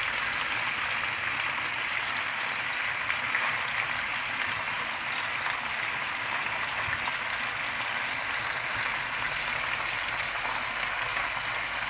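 Jalapeño peppers, sliced carrots, onion and nopal paddles frying in a glazed clay cazuela: a steady, even sizzle.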